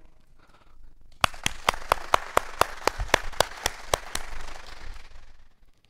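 A congregation clapping, starting about a second in: one person's steady hand claps stand out close to the microphone, about five a second, over the scattered applause of the crowd. The claps stop after a few seconds and the applause fades out.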